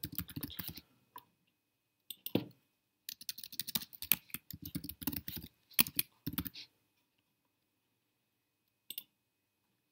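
Typing on a computer keyboard, key clicks in short runs, the longest from about three to six and a half seconds in, with a single click near the end.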